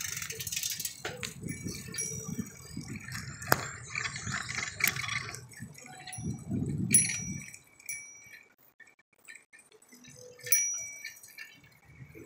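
Short, light metallic dings of a bicycle bell, repeated several times, over a low rumble that dies away about seven and a half seconds in.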